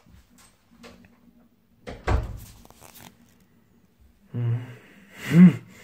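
A bathroom door pushed shut with a single thump about two seconds in. Near the end, a short low hum and a brief vocal sound.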